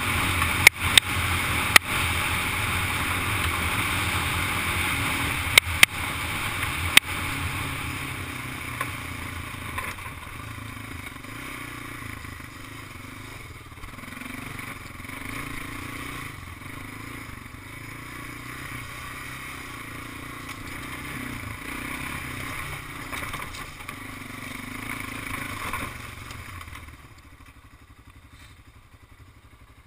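Honda ATV engine running under way, with several sharp knocks in the first seven seconds. The sound eases off after that and drops much quieter near the end.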